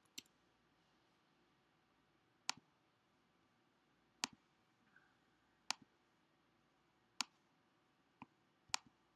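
Sharp single clicks over near silence, about seven of them at gaps of roughly one and a half to two seconds.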